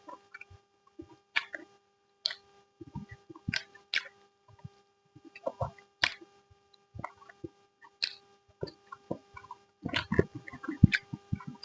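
Close-up eating sounds: wet chewing and lip smacks from someone eating curry, coming in irregular clusters about once a second. A faint steady hum runs behind them.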